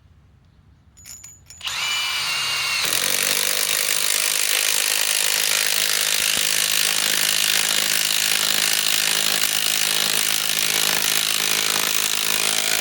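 Bosch GDS18V-330C mid-torque cordless impact wrench driving a lag screw into virgin wood. After a few faint clicks it starts with a brief motor whine, then hammers steadily for about ten seconds and stops abruptly.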